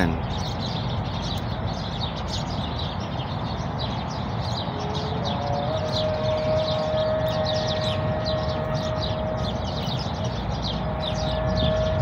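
A flock of birds chirping together as they settle to roost at dusk, a dense stream of short high chirps. About five seconds in, a steady siren-like tone starts and holds underneath.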